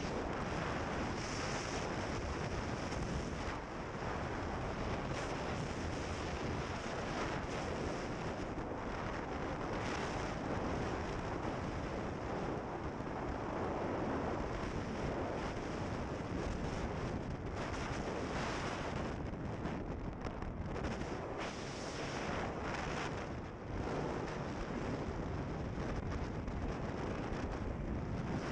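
Wind buffeting the microphone over a steady rush of water and engine noise aboard a boat underway.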